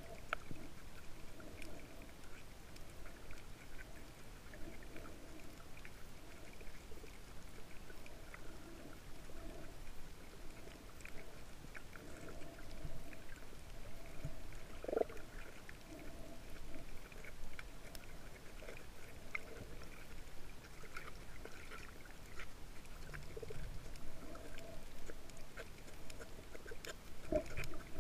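Muffled underwater sound picked up by a camera held under water: a low steady wash with scattered faint clicks and crackles. There are two soft knocks, one about halfway through and one near the end.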